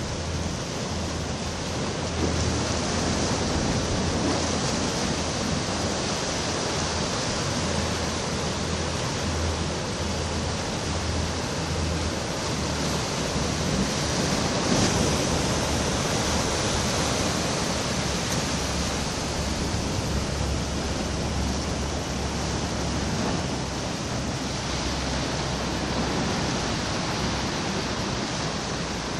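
Steady rush of sea and wind, waves washing against a rock breakwater, with a low rumble underneath.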